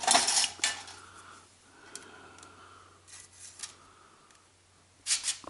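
Metal handling noise as pliers work at the copper conductor strips in an aluminum track-light rail: a burst of clinks and rattles, then quieter scraping with a few light clicks, and more clattering near the end.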